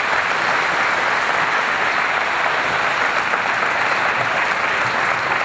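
An audience applauding steadily for an inductee, the clapping carrying on without a break.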